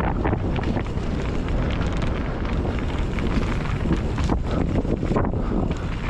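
Wind rushing over an action camera's microphone as a mountain bike descends a rough trail at speed, with a constant clatter and knocking of the bike and tyres over the ground.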